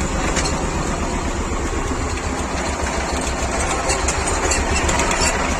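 T-25 Vladimirets tractor's two-cylinder air-cooled diesel engine running steadily.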